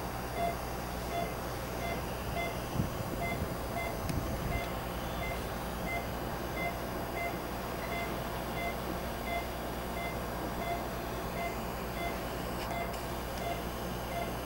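Patient monitor beeping with the heartbeat, a short two-note beep about three times every two seconds, over a steady background hum of the procedure room.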